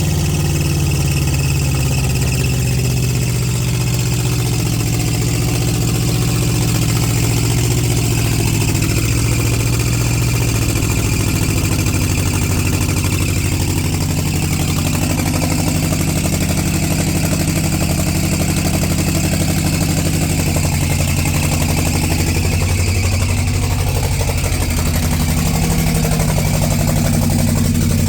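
Chevrolet Caprice engine running steadily at idle, its pitch wavering briefly about two-thirds of the way through. It has just started after the distributor wires were reconnected, with the distributor's orientation still unchecked.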